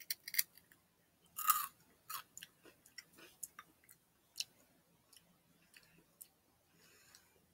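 Close-up crunching of a person biting into and chewing Flamin' Hot Limón Crunchy Cheetos: irregular crisp cracks, the loudest about a second and a half in, growing sparser toward the end.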